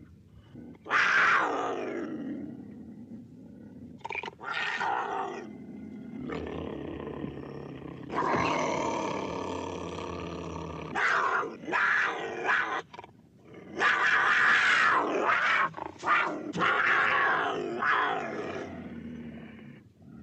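Cougar (mountain lion) calling: a series of loud, rough cries, the first falling in pitch, several drawn out for two to three seconds, with short breaks between.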